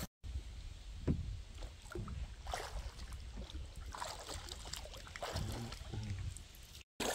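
Kayak paddling on a river: paddle blades dipping and splashing at an irregular pace, with a sharper knock about a second in.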